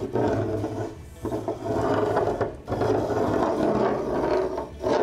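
Pencil in a beam compass scraping across the layout's benchwork board as a large arc is drawn, in three long strokes with short pauses between.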